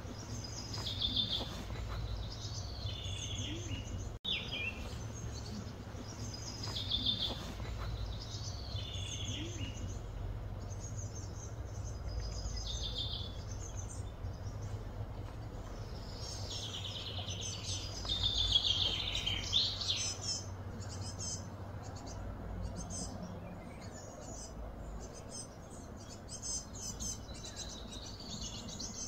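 Birds calling: short chirping phrases repeated every couple of seconds, busiest about two-thirds of the way through, over a steady low outdoor rumble.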